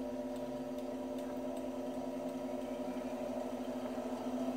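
Treadmill DC motor driving an Atlas 618 metal lathe through pulleys, running with a steady hum of several tones while its speed is stepped up from the control panel's button.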